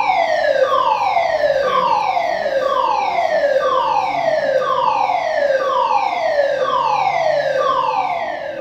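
Building evacuation alarm sounding: a loud siren tone that falls in pitch, repeated about once a second and fading near the end. It signals that everyone must leave the building.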